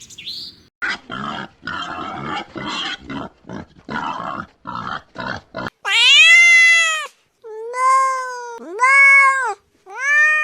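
A domestic cat meowing four times, each a long meow about a second, rising and falling in pitch. Before the meows comes a quick run of about a dozen short, rough, noisy sounds from an animal.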